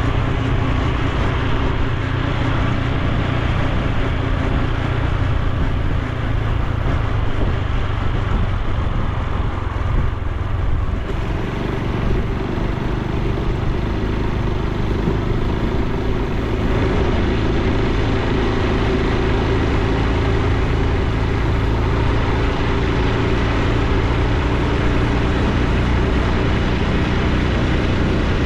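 Honda Super Cub C125's single-cylinder four-stroke engine and exhaust running while riding, with wind and road noise. The engine note changes about eleven seconds in.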